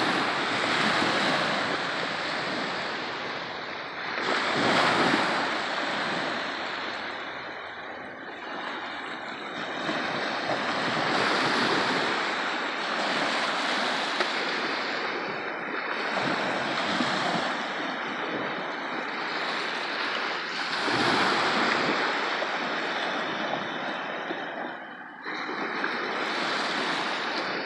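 Small waves washing onto the beach, the surf swelling and fading every few seconds.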